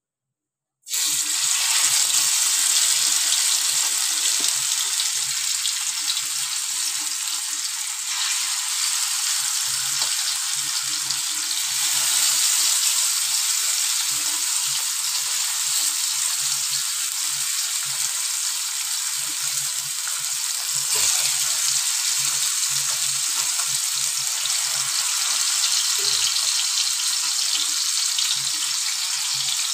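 Masala-coated fish pieces sizzling in hot oil on a tawa griddle: a steady hiss of frying that starts abruptly about a second in.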